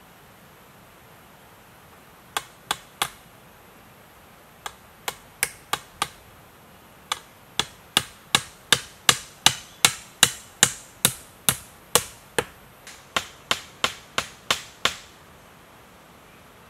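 A hand tool striking again and again, chopping or hammering: sharp blows at about two to three a second, in runs broken by short pauses, with the longest run of over a dozen blows in the middle.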